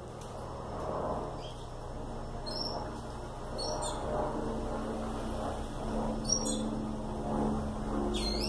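A bird chirping in about four short, high calls that sweep in pitch, over a low steady hum.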